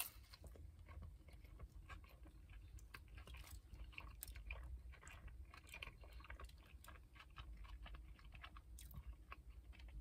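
Faint chewing of a mouthful of breakfast burrito (flour tortilla with egg, sausage, potato and bacon): soft, irregular wet mouth clicks, over a low steady hum.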